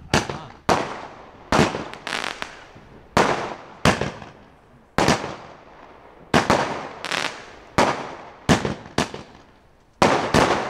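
Nico S.W.A.T. Team fireworks battery firing shot after shot, each a sharp bang with a fading crackle as the small burst breaks, about one to two a second. A brief lull comes near the end, followed by a quick cluster of bangs.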